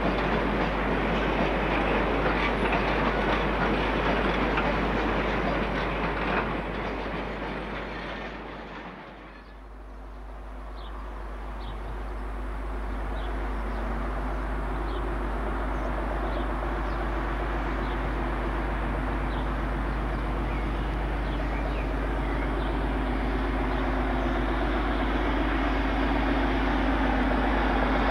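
A diesel-hauled freight train passing, its wheels clattering over the rail joints, fading out about nine seconds in. Then a Class 56 diesel locomotive's Ruston-Paxman V16 engine is heard working as it approaches, growing steadily louder.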